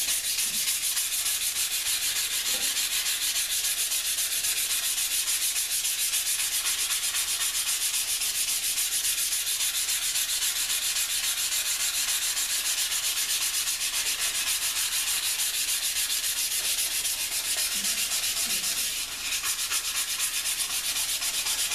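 Sandpaper rubbed by hand over an etched Damascus steel knife blade in quick, even back-and-forth strokes, with a brief let-up about nineteen seconds in. The sanding takes the black etch oxide off the raised layers while it stays in the etched-down lines, bringing out the pattern.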